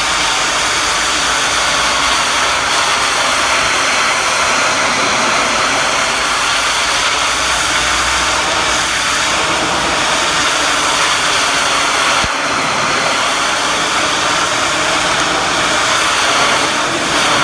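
Pressure washer running steadily, its high-pressure spray hissing against brick.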